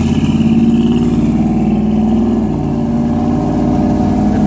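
Vehicle engine running loudly with a steady pitch that dips a little about halfway through and climbs again near the end, as traffic moves off.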